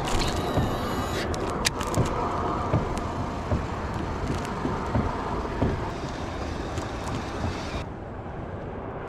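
Wind rumbling on the camera microphone as a fishing kayak moves over the water, with soft thumps a little faster than once a second that ease off after about six seconds.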